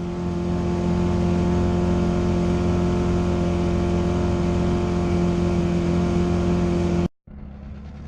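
An engine running at a steady speed, giving a loud, even hum that holds one pitch. About seven seconds in it cuts off abruptly and a quieter engine drone follows.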